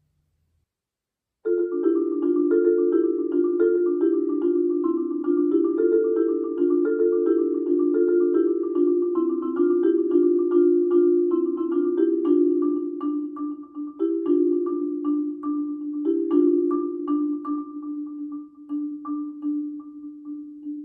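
Marimba played with mallets: after about a second and a half of silence it comes in suddenly with a fast, steady stream of struck notes in its middle-low register, the notes growing sparser near the end.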